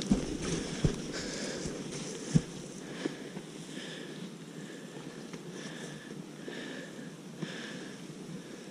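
A person breathing in a steady rhythm, with four dull thumps in the first three seconds, over a low rushing noise.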